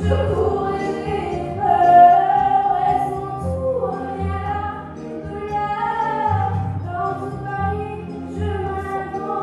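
A girl singing a slow melody with long held notes into a handheld microphone, amplified over musical accompaniment with a pulsing bass.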